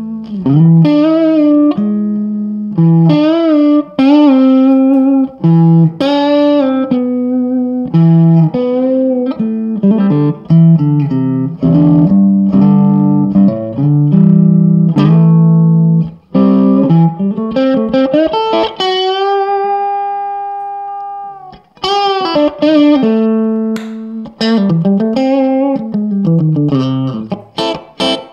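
Electric guitar played through a Marshall Lead 12 solid-state mini stack, set for a mildly overdriven classic Marshall tone: picked chords and riff lines with short gaps, and one long held note with vibrato that fades out about two-thirds of the way through before the riffing resumes.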